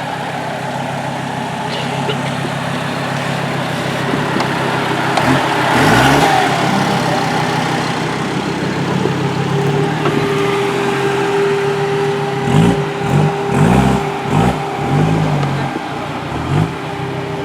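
Rally car engine running, revved once about six seconds in, then blipped in a quick series of short revs, several a second apart, through the second half.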